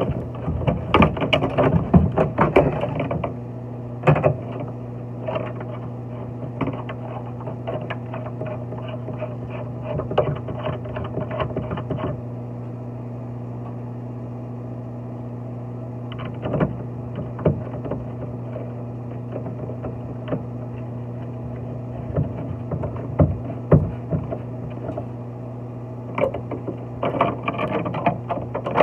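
A steady low hum with scattered clicks and knocks, thickest in the first few seconds and again near the end.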